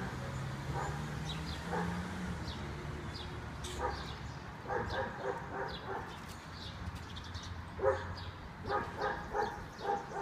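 A dog barking repeatedly, often two or three barks together, with faint high-pitched bird chirps in between.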